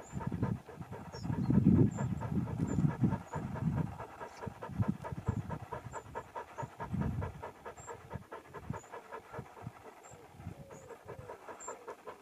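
A dog panting rapidly and steadily, louder through the first few seconds and fading later on.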